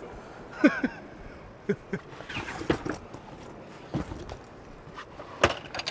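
Scattered knocks and clicks of gear being handled on a vehicle's slide-out tray as a waterproof bag is lifted and set down, the sharpest knock near the end.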